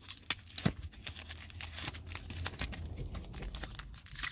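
Pokémon booster pack foil wrapper crinkling and tearing open, a run of quick sharp crackles.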